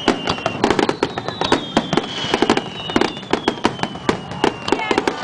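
Fireworks display: rapid, overlapping bangs of aerial shells bursting several times a second, with long whistles sliding slowly down in pitch.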